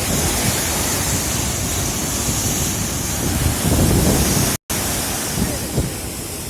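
Sea waves washing on the shore with wind buffeting the microphone, a steady rushing noise with a low rumble. The sound cuts out completely for a split second a little over halfway.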